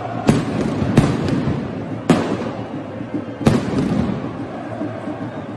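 Firecrackers thrown by fans going off in sharp bangs, about five in the first three and a half seconds, the later ones spaced wider apart, over a steady din from the packed stands.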